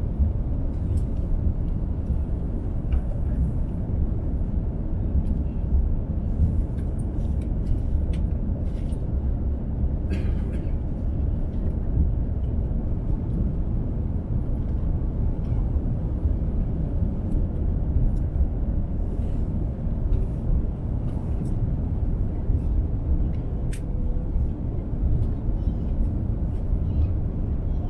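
Steady low rumble of engine and airflow noise inside the cabin of an Airbus A350-900 airliner on approach, with a few faint ticks and rattles.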